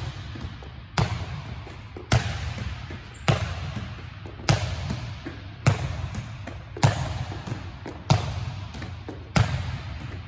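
Two volleyballs being set against a gym wall: a sharp ball smack about every 1.2 seconds, each followed by the hall's echo.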